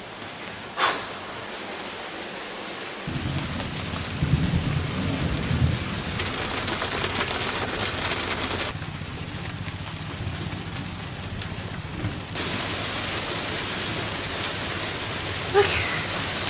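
Heavy tropical rain hissing on a sailboat, with thunder overhead: a sharp crack about a second in, then low rolling rumbles from about three seconds on.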